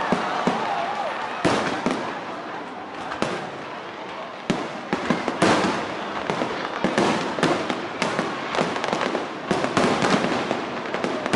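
Fireworks display: a rapid, irregular series of bangs and crackles. It thins out briefly, then comes thick again about four and a half seconds in.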